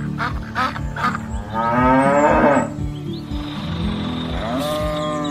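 A cow mooing: one long, loud moo about two seconds in, and a second, shorter call near the end, over background music with a steady beat.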